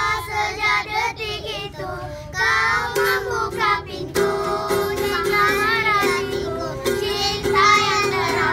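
A group of children singing together.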